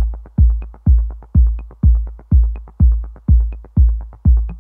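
Electronic dance music with a steady kick drum beating about twice a second, lighter higher percussion ticking between the beats.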